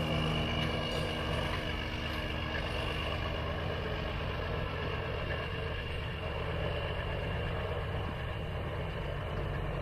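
Kenworth W900 semi truck's diesel engine running steadily, a low even engine sound.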